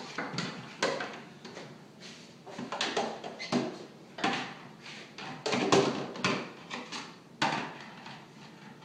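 Irregular knocks and clatters of a child handling a plastic toy play kitchen and a spoon: doors or drawers opening and shutting and pieces banging together, the loudest knock about six seconds in.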